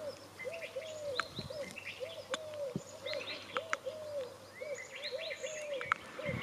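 Outdoor birdsong: one bird repeats a low, arched call two or three times a second, while other birds chirp and twitter higher up.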